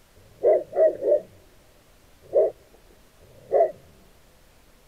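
A dog barking: three quick barks close together, then two single barks about a second apart.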